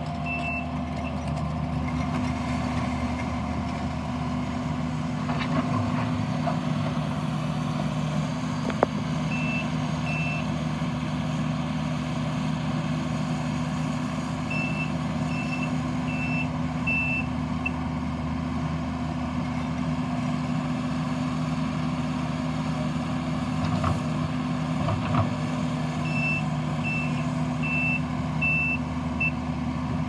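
Takeuchi TL8 compact track loader's diesel engine running steadily as the machine works, with its reverse alarm beeping in three short runs as it backs up. A single sharp knock sounds about nine seconds in.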